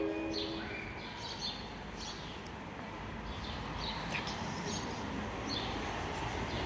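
Small birds chirping in short, scattered calls over steady background noise.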